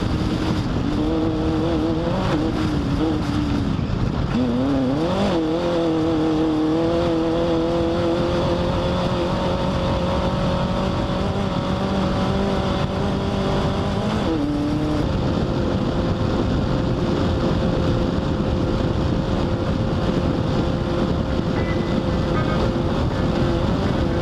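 Off-road race car's engine running at high, steady revs over a constant rough noise. About four seconds in the revs dip and climb back, and about fourteen seconds in they drop to a lower steady pitch.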